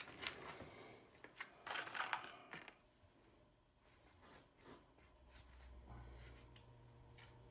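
Light clicks and rustles of a metal hose clamp being handled and fitted onto the end of a rubber air hose, thinning out after about three seconds. A faint low hum comes in about six seconds in.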